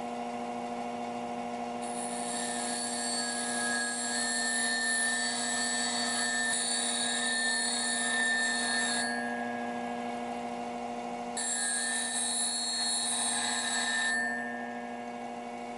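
Bench grinder running with a steady hum, which the owner puts down to the worn, slightly out-of-balance aluminum oxide wheel on the other side. A drill bit is ground freehand on its CBN wheel, making a hissing grind from about two seconds in to about nine seconds, then again from about eleven and a half to fourteen seconds.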